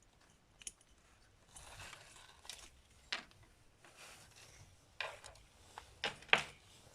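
Light, irregular clicks and brief scraping of small metal parts: the float pivot pin being pushed out of a Mikuni carburetor body. The sharpest clicks come in the second half.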